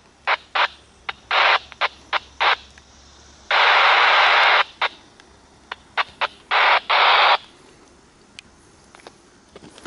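Scanner radio tuned to railroad traffic, giving a string of static bursts: short crackles and two longer hisses of about a second each, each starting and cutting off abruptly.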